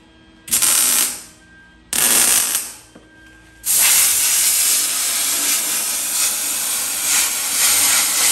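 Compressed air hissing from a blow gun onto fresh stitch welds on a steel quarter panel, cooling the metal so the panel does not warp. Two short blasts about a second and a half apart, each tailing off, then a steady blast from about a third of the way in.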